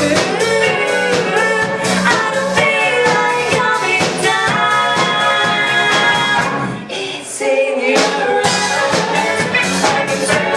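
Music with a steady beat and held melodic notes, dipping briefly about seven seconds in.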